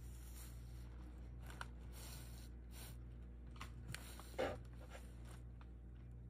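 Quiet room tone with a steady low hum, and faint rustles and small taps from a handheld phone camera being moved; the loudest is a single tap about four and a half seconds in.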